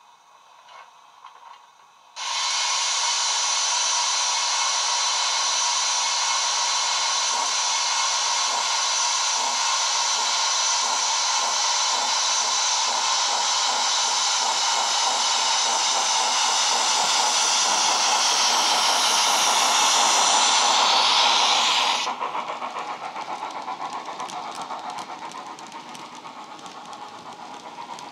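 Sound-fitted Hornby Q6 model steam locomotive, its DCC decoder playing through a small 27 mm speaker. A loud, steady steam hiss starts suddenly about two seconds in and slowly swells, then cuts off abruptly a few seconds before the end. After that, quieter regular exhaust beats continue as the loco pulls its train away.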